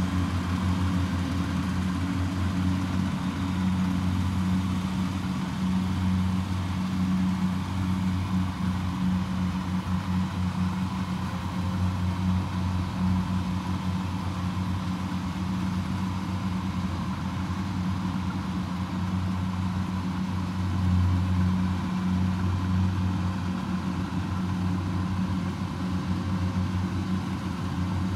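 Diesel engines of two Kubota rice combine harvesters, a DC105X and a DC70, running steadily under load while they harvest. The hum is even and low.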